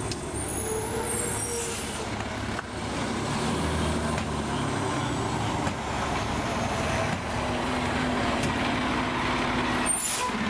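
Fire apparatus diesel engine running steadily at a low rumble, with a broad hiss over it. A short burst of hiss comes near the end.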